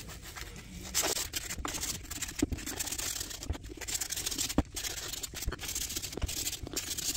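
Sandpaper scrubbing the rusty bead seat of a mower's metal wheel rim by hand: continuous, irregular scratching strokes with a few light knocks.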